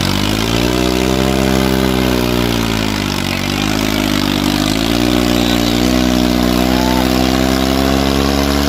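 Swaraj 855 tractor's diesel engine running hard under load as the tractor is held in a wheelie with its rear tyres digging into loose soil. Its pitch sags twice, around two to three seconds and again about four and a half seconds in, then climbs back and holds steady.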